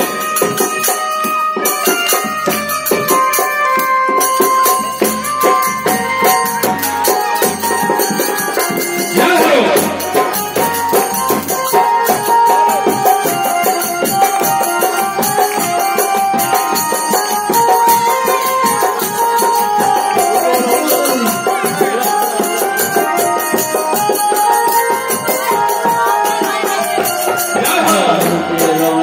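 Devotional kirtan music: a continuous jingling of hand cymbals over sustained melodic notes, with sweeping rising-and-falling pitch glides about ten seconds in and again near the end.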